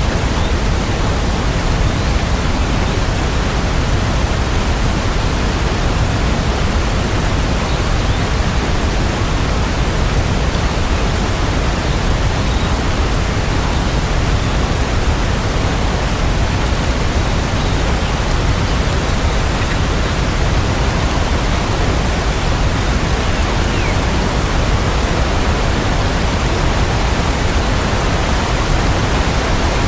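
Steady rain: an even hiss with no separate drops standing out.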